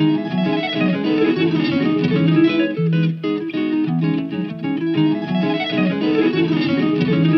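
Background instrumental music led by guitars, with a steady rhythm.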